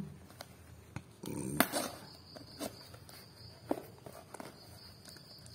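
Hands handling a tape-wrapped cardboard parcel and a box cutter: scattered taps, scrapes and rustles, with the loudest knock about a second and a half in.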